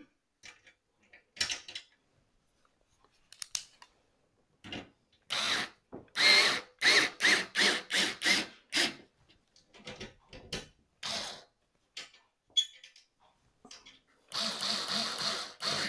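Cordless electric screwdriver driving Torx screws into an oven door's metal frame: a string of short trigger pulses about five to nine seconds in, and a longer steady run near the end, with small clicks of handling between.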